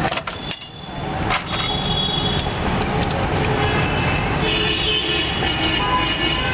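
Busy street traffic noise, steady throughout, with vehicle horns sounding at times.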